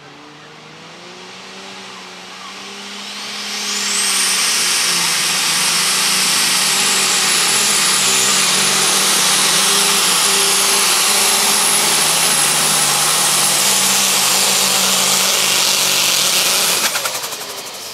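Modified pulling tractor's turbocharged engine running flat out under full load, revving up over the first few seconds into a loud, steady howl with a high whistle riding on top. About 17 seconds in it cuts off sharply as the pull ends.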